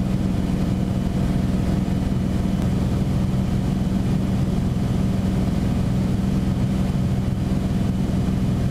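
Beechcraft Bonanza's six-cylinder piston engine and propeller droning steadily, heard inside the cockpit as a constant low hum with no change in pitch.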